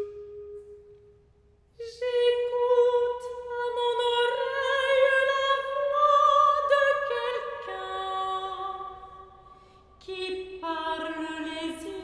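Soprano singing a slow, sustained classical line with vibrato, accompanied by steady held organ notes, with church reverberation. A held note first fades into a brief near-quiet pause, and the voice enters about two seconds in, rising slowly. Organ notes join partway through, and after a short dip near the end she starts a new, lower phrase.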